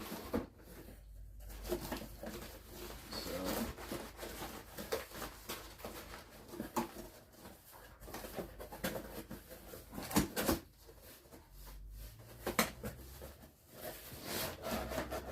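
Handling noise as CNC kit parts and their packaging are moved about: irregular knocks, clicks and rustles, with a sharper knock about ten seconds in.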